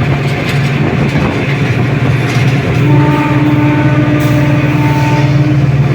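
Diesel-electric locomotive running with a steady low engine drone. About three seconds in, its horn sounds one long steady note that lasts nearly three seconds.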